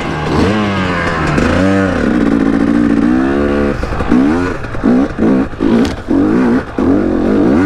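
KTM 250 two-stroke dirt bike engine revving up and down under throttle. From about halfway it comes in short, quick throttle blips, about two a second.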